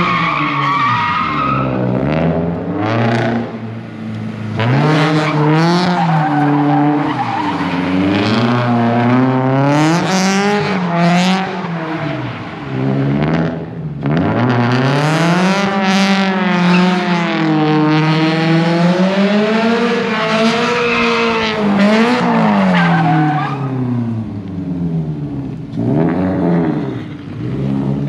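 Drift car's engine revving up and dropping back again and again as the car slides, with the tyres squealing in bursts.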